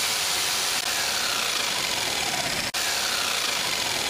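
Loud, steady electric machine buzz with a hissing edge and faint falling whines, cut off for an instant about two and a half seconds in.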